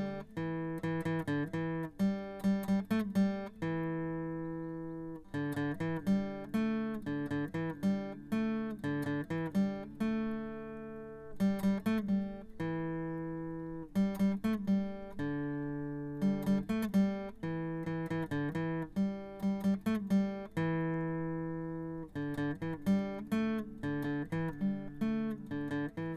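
Acoustic guitar music: picked notes that ring and fade, in a phrase that repeats.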